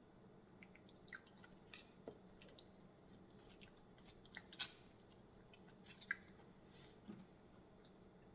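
Faint, scattered clicks of mussel shells and fingers picking through a bowl of saucy seafood boil, with quiet chewing.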